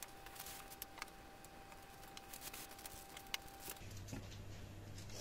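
Faint, scattered clicks and ticks of a sharp kitchen knife being pressed down through puff pastry onto parchment paper and a wooden table, over a faint steady background tone.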